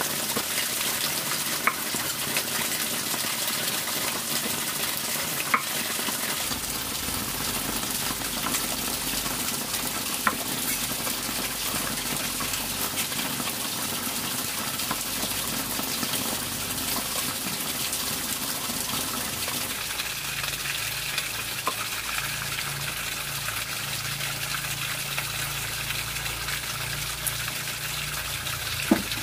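Pork fat sizzling steadily as it renders down into lard, with a few sharp pops.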